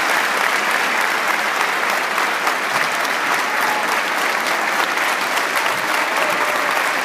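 Large audience applauding, a steady, dense wash of clapping.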